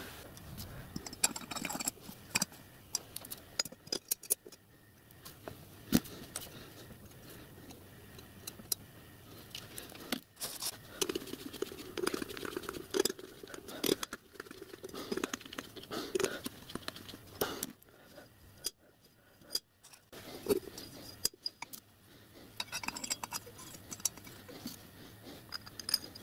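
Small steel parts of a miniature steam locomotive's smokebox door being handled and fitted by hand on a workbench: irregular light clicks, knocks and scrapes, many of them, with no steady rhythm.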